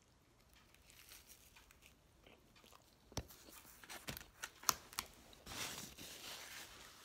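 Quiet close-up eating sounds: a person biting into and chewing pizza, with a few sharp clicks between about three and five seconds in and a longer crackly crunch after.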